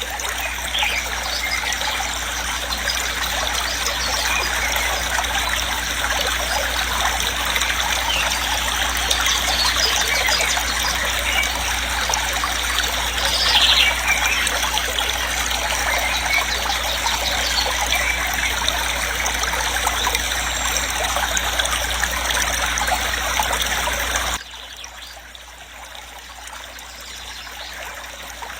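Waterfall rushing steadily, a dense even roar of falling water; about 24 seconds in it suddenly drops to a quieter level.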